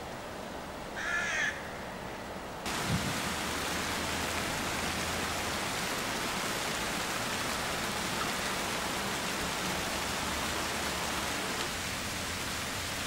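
A crow caws once about a second in. Near three seconds a steady, even hiss of storm rain sets in abruptly, with a brief low thump as it starts, and runs on unchanged.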